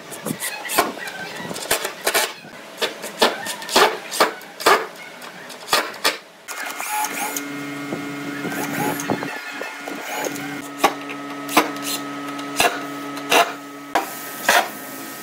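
Cordless drill boring holes into a solid-wood tabletop. Sharp clicks and knocks throughout, and about halfway in the drill motor starts a steady whine that runs for several seconds before stopping near the end.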